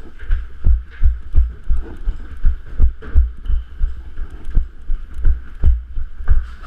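Regular low thumps, about three a second, like the footsteps of a person running or jogging carrying the microphone.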